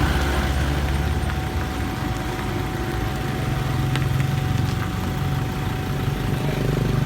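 Motor vehicle engine idling steadily with a low rumble, a thin steady whine above it, and a few light clicks about four seconds in.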